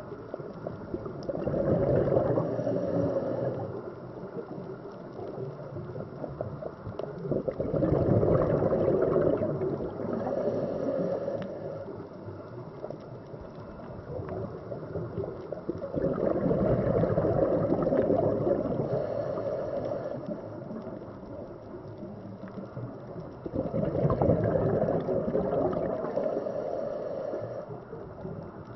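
Scuba diver's regulator exhaling underwater, bursts of bubbles gurgling four times, each lasting a few seconds, about seven to eight seconds apart.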